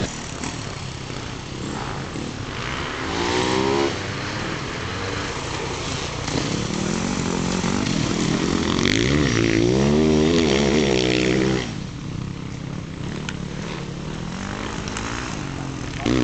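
Dirt bike engines revving up and down as the bikes ride past, the pitch rising and falling with the throttle. The loudest stretch comes about eight seconds in and lasts some four seconds before cutting off suddenly.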